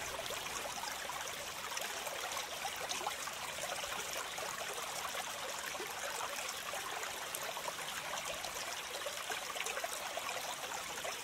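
Water of a small stream trickling steadily.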